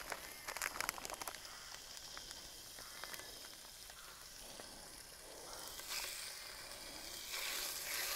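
Raw diced chicken pieces sizzling in hot oil in a paella pan as they are laid in one by one. There are sharp crackles in the first second, and the sizzle grows louder about six seconds in and again near the end as more pieces go in.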